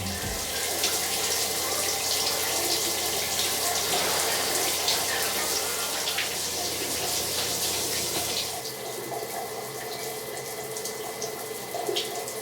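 Water running from a tap into a sink, a steady rush with small splashes.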